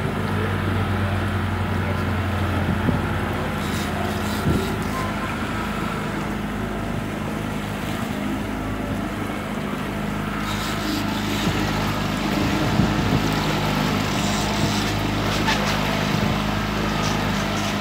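Boat's outboard motor running steadily, a constant low hum, with wind and water noise over it.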